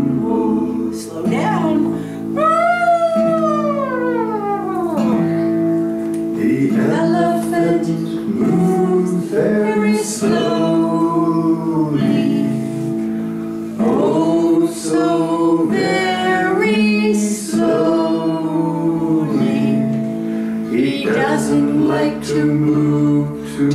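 Music: a slow children's song with a sung voice over acoustic guitar, including one long falling sung glide a few seconds in.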